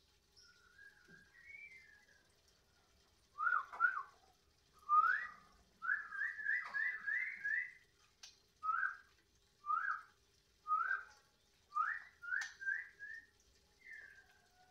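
Caged captive-bred (F1) songbird singing: a few soft warbled notes, then loud, short, rising whistles, first a quick run of five and then single notes about one a second, ending on a falling note.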